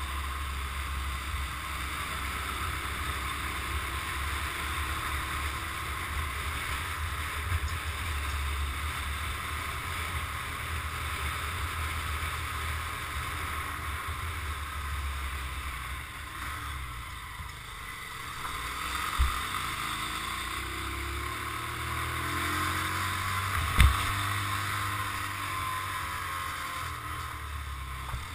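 Motorcycle running on the road, heard from a camera mounted on the bike, with steady wind rush over the microphone. The engine note glides in pitch a little past halfway. Two sharp knocks come from the bike or camera mount, the louder one a few seconds before the end.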